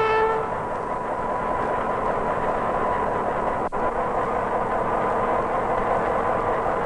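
The end of a horn blast, cut off about half a second in, then the steady running noise of a ČSD M263.0 diesel railcar approaching on the track. There is one brief break in the sound about halfway through.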